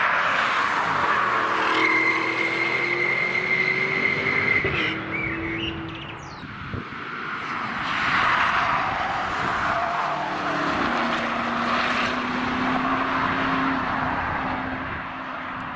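Porsche Cayenne Coupe GTS's 4.0-litre twin-turbo V8, exhausting through particulate filters, driven hard past on a race track. Its pitch rises and falls with throttle and gear changes, and it swells loud at the start and again about eight seconds in. About two seconds in, a steady high whine sits over the engine for a few seconds.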